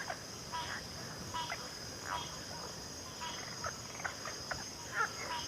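Backwater chorus of frogs and insects: a steady high insect trill throughout, under many short overlapping frog calls, some sweeping down in pitch.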